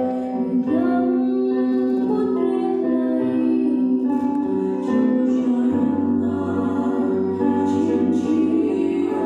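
A woman singing live into a handheld microphone over a steady instrumental accompaniment, holding long notes through the amplified sound in a large hall.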